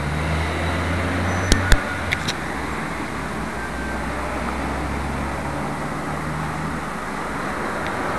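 Steady road traffic noise with a low hum that drops away twice, and a few sharp clicks about one and a half to two seconds in, typical of the small camera being handled.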